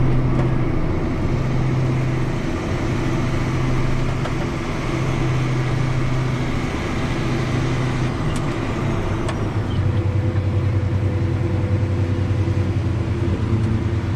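A vehicle engine running steadily while driving. Its note drops slightly about two-thirds of the way through, then holds.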